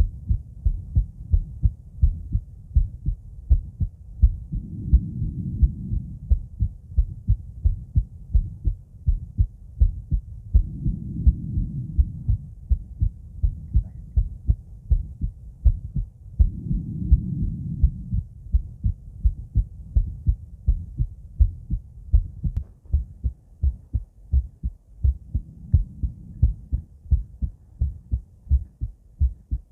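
A woman's heartbeat heard through a stethoscope chest piece with a microphone: a steady run of lub-dub heart sounds, deep and muffled. A soft rushing noise swells under the beats about every six seconds.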